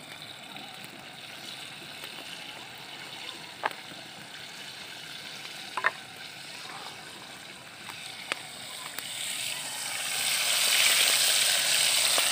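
A few short sharp taps over a faint background, then about ten seconds in a loud, steady sizzling hiss as a flour-coated pork chop goes into hot cooking oil in a metal pot over a wood fire.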